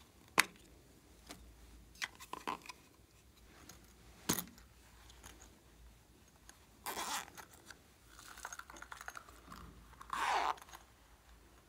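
Handling noise from small plastic and rubber cases being opened and worked by hand: a few sharp clicks in the first half, the loudest less than half a second in, then two longer scraping rustles in the second half.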